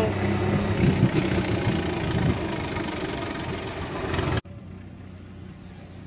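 An engine running steadily close by, which stops abruptly about four and a half seconds in, leaving only a faint hum.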